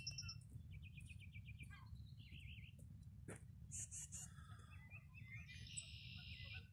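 Faint bird calls: several birds chirping and trilling, with a longer buzzy note near the end, over a steady low rumble.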